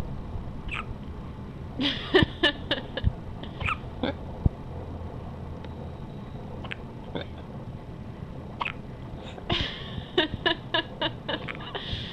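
A one-week-old baby hiccuping, with short little sounds from her throat: a quick flurry about two seconds in, another around ten seconds, and single ones scattered between.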